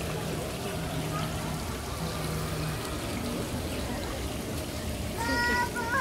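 Steady running water, with faint voices in the background. Near the end a brief high-pitched call sounds for under a second.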